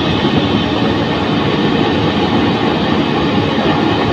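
Home-made 1/2-inch LPG jet burner running with a long blue flame: a loud, steady rushing noise of burning gas and forced air.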